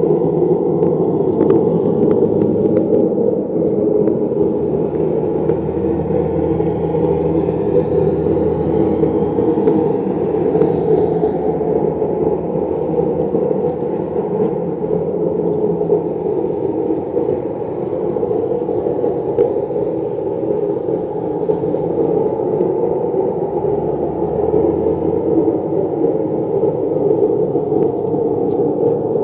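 Loud, steady low droning rumble of the kind reported as the 2012 'strange sounds', with no identifiable source. A deeper hum swells underneath twice, a few seconds in and again near the end.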